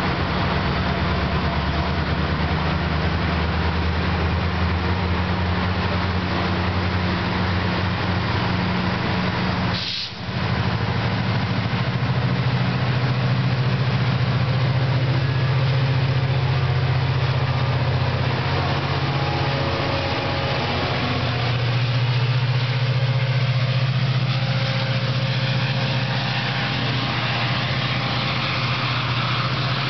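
Diesel-electric locomotive engine of a MARC commuter train running under load as the train pulls away, a steady low drone. The sound briefly drops out about ten seconds in, then the engine drone comes back stronger.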